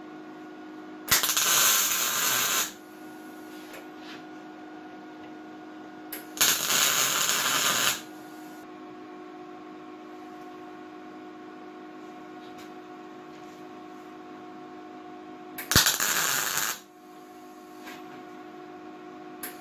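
Welding arc crackling in short tack welds as bolts are welded on: three bursts of about a second and a half, each struck suddenly and cut off sharply, and a fourth starting right at the end, over a steady hum.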